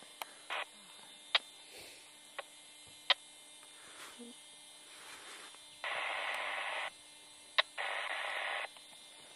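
Two bursts of two-way radio static, each about a second long, a little past halfway, with a few sharp clicks scattered before and between them over a faint steady hum.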